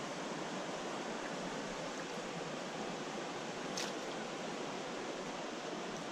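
Shallow stream running steadily around the wader's legs, an even rush of water, with one brief click about four seconds in.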